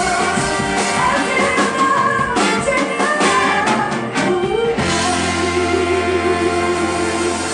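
Live soul band playing loudly, with singing, guitar and drum kit. About five seconds in the drumming stops and the band holds one long chord, with a wavering held note over it.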